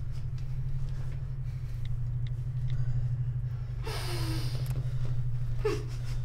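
Muffled, breathy whimpers through a gag: short nasal moans that drop in pitch, one about four seconds in and another near the end, over a steady low hum.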